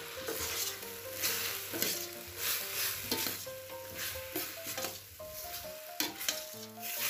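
Metal spoon stirring and scraping chunks of beef brisket, beef skin and onions around a stainless steel pot, with the meat sizzling in hot oil as it is sautéed. The strokes come about two a second.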